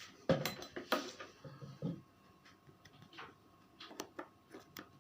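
Clinks and knocks of glass jars and kitchen utensils being handled on a table: a cluster of sharp knocks in the first second, then lighter scattered clicks.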